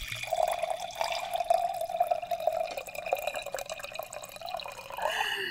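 Wine pouring from a bottle into a wine glass: a steady stream of liquid with small splashes, changing in pitch near the end as the pour tapers off.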